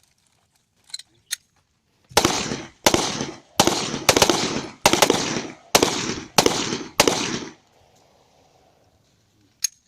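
About eight gunshots in slow, steady semi-automatic succession, roughly one every two-thirds of a second, each with a short echoing tail. A couple of faint clicks come before the shooting starts.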